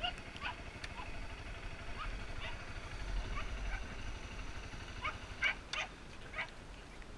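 Scattered short animal calls, some close together, over a steady low rumble.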